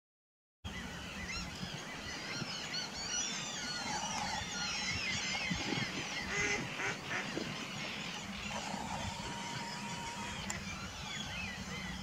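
Wild birds calling by a lake: many overlapping high chirps and calls, with louder honking calls in the middle, starting abruptly after silence.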